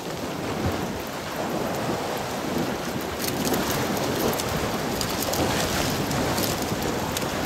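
Wind rumbling on the microphone over sea waves washing, a steady rushing noise with scattered faint crackles.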